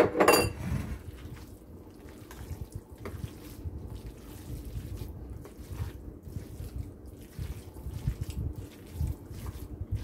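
Bare hands squishing and kneading a wet raw ground turkey and chicken meatloaf mixture, with soaked bread and vegetables, in a glass bowl: soft, irregular wet squelches. A short sharp sound comes at the very start.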